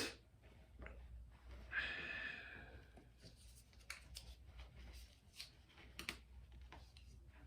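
Quiet room with faint handling sounds: scattered soft clicks and taps, and a short breathy hiss about two seconds in.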